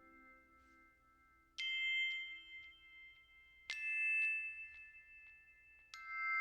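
Background music of slow, bell-like struck notes: three chime or glockenspiel-like strikes about two seconds apart, each ringing on and fading.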